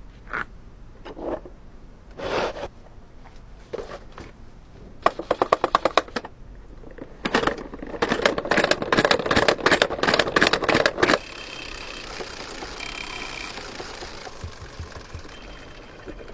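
Mechanical clicking: a few single clicks, then fast runs of even clicks, which give way about eleven seconds in to a steady whir.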